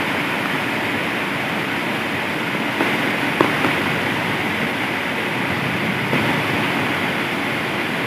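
Heavy rain pouring down in a steady hiss, with a few sharp taps of drops standing out, the loudest about three and a half seconds in.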